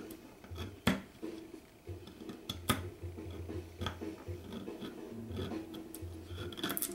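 Tenon cork scraper cutting old cork off a clarinet tenon: scraping with a few sharp clicks and snaps as pieces of cork break away.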